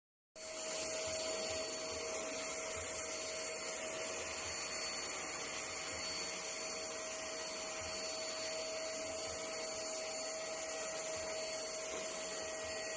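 Handheld household vacuum cleaner running steadily, a constant motor whine over rushing air. It starts suddenly just after the start.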